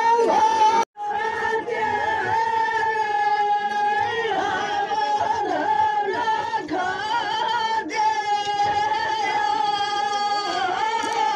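A group of women singing a rasiya, a Braj folk song, together in long drawn-out notes with no instruments. The singing cuts out for an instant about a second in.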